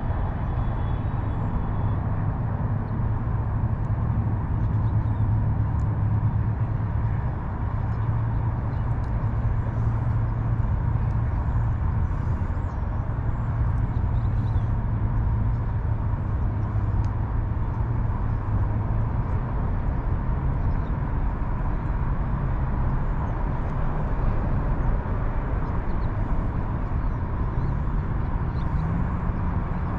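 Steady low rumble of road traffic that does not rise or fall, with no distinct events.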